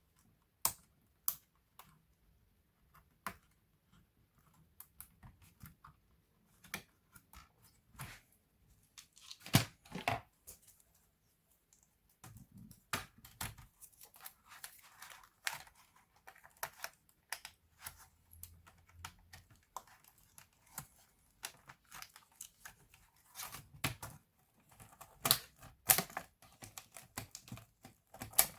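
Hands working on a laptop: scattered clicks, taps and plastic rustling, irregular and busier in the second half.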